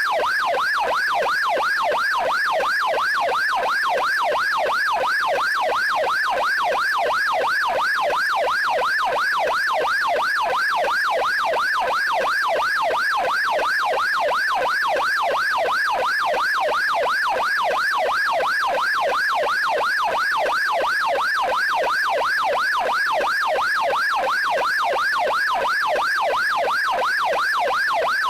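Electronic police siren on its yelp setting: a rapid up-and-down sweeping tone, rising and falling about three to four times a second, steady in loudness throughout.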